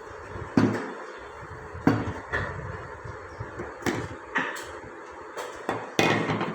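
Irregular knocks and clunks of kitchen containers and utensils being handled, about six in all.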